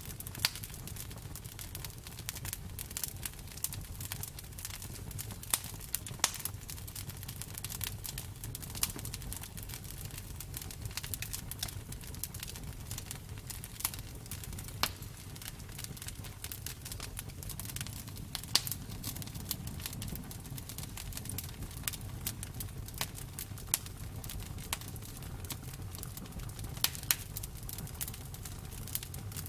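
Wood fire burning: a steady low rumble with frequent, irregular sharp crackles and pops.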